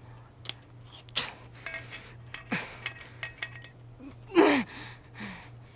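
A few sharp clinks of steel kitchen utensils, some ringing briefly, mixed with a woman's breathy exhales and a short voiced sound with a falling pitch about four and a half seconds in, the loudest event. A steady low hum lies underneath throughout.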